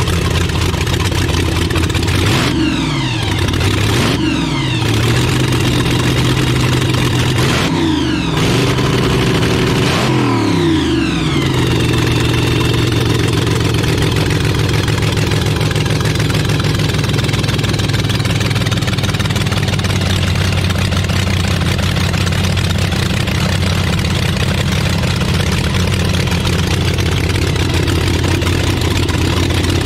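Supercharged V8 of a front-engine dragster, running through open zoomie headers. It is blipped four times in the first dozen seconds, each rev rising and falling back quickly, then settles into a steady idle.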